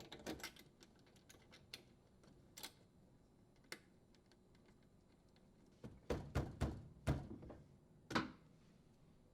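Faint, scattered clicks and taps, busier from about six to eight seconds in: hands working at a dishwasher's electrical terminal box, threading and tightening the strain relief nut and handling the wires.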